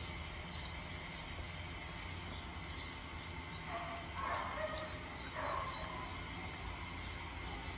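A dog barking a few times, in a short cluster about four seconds in and once more shortly after, over a steady low background rumble.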